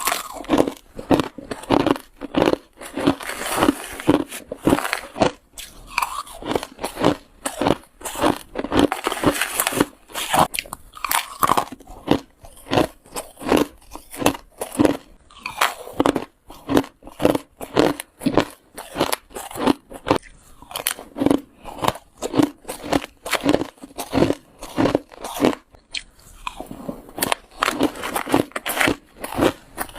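Close-up biting and crunching of ice: a long run of sharp crunches, roughly one or two a second, as mouthfuls of hard and crushed ice are bitten and chewed.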